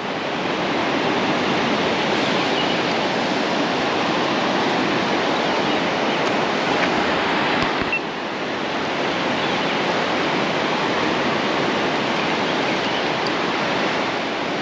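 Surf breaking on an open sandy beach: a steady, even rush of waves.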